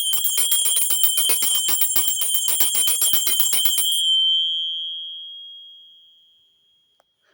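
Brass hand bell shaken rapidly, its clapper striking about eight times a second over one high-pitched ringing tone. About four seconds in the shaking stops and the bell rings on, fading away over about three seconds.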